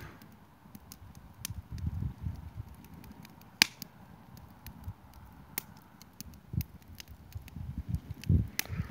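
Wood campfire crackling, with irregular sharp pops scattered through, the loudest about three and a half seconds in, over a low rumble.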